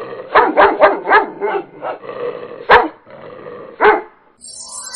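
Dog barking: a quick run of barks in the first two seconds, then two single barks about a second apart.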